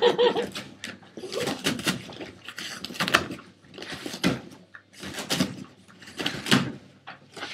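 Boston Terrier tearing and scratching at a cardboard box: rough rasping rips of cardboard, about one a second.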